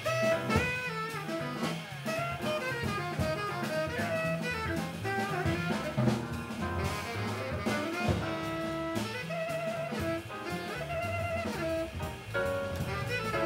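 Live small-group jazz: a tenor saxophone playing a melodic line of quick notes over piano, walking double bass and drum kit.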